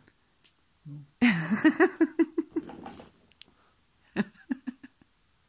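A person laughing in a quick run of short 'ha-ha' pulses, then laughing again briefly near the end.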